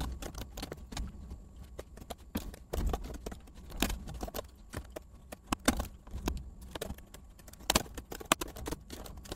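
Typing on a computer keyboard: a run of irregular key clicks, with a few louder keystrokes among them.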